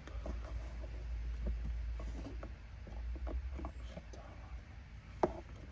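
Scattered light clicks and taps of a car's plastic A-pillar trim being pulled at by hand, with one sharper click near the end, over a low steady rumble.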